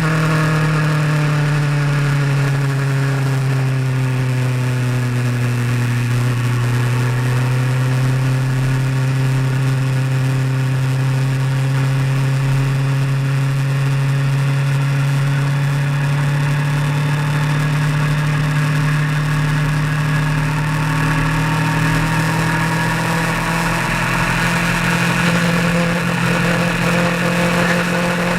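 A vehicle's engine running steadily while driving on the road. Its pitch eases down over the first several seconds, holds level for a long stretch, then rises again near the end as the revs pick up.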